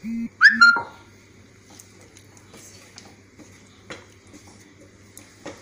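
A short, loud pitched call-like sound about half a second in, its pitch falling steeply, just after a brief low hum. Then light clicks of a plastic spatula against a non-stick pan as potatoes are stirred into tomato gravy, with two sharper knocks near the end.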